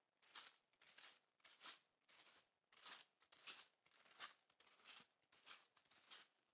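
Faint, regular crunching of snowshoe steps on snow, about two steps a second.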